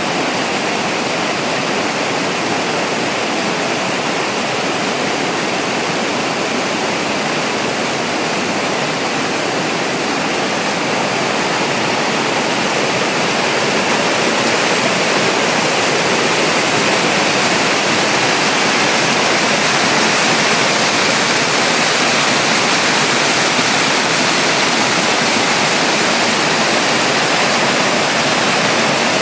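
Waterfall: a steady, loud rush of falling water, growing a little louder about halfway through.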